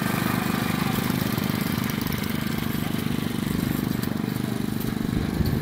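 Small garden tractor's engine running steadily at low speed, with a fast, even putter.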